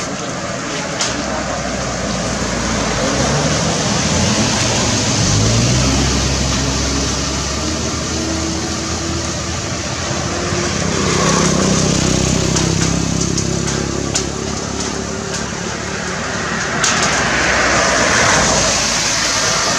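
A motor vehicle's engine running close by, its pitch rising a few seconds in and again about halfway through, with people's voices faintly underneath.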